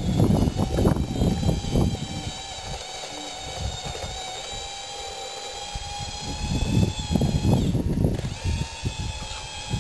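Radio-controlled model bulldozer's drive motors and gearbox whining steadily as it crawls over dirt, the whine dipping and rising in pitch near the end. Bursts of low rumble come at the start and again in the last few seconds.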